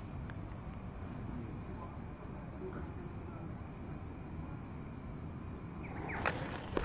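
Steady high chirring of crickets. Near the end come sharp crackling snaps as the firework's fuse is lit and starts throwing sparks.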